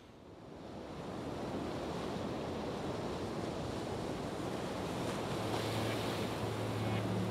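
A steady rushing noise like wind or surf, fading in from silence over the first second or so. A low steady hum joins about five seconds in as the outro music builds.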